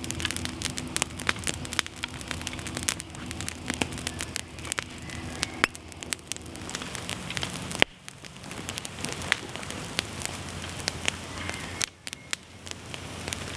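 Small wood campfire of kindling sticks burning hard, with dense crackling and frequent sharp pops.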